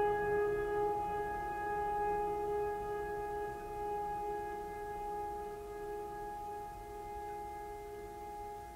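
Background music: one long held tone with overtones, fading slowly.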